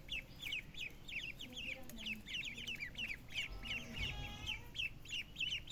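A group of young poultry peeping continuously, with short, high, falling chirps about five a second. Low clucks sound underneath, and a louder call comes about four seconds in.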